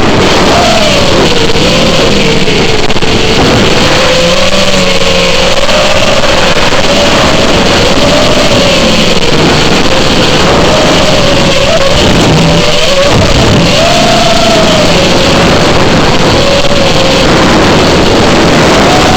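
FPV quadcopter motors whining, the pitch rising and falling constantly with the throttle, over a loud steady rush of noise.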